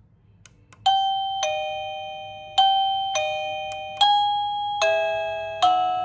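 Secrui plug-in wireless doorbell receiver playing an electronic ding-dong chime through its speaker, a higher note then a lower one, repeated about three times, each note striking and dying away; the chime starts about a second in, after a couple of faint clicks. It is the receiver previewing a tone while one is picked with its music-note button.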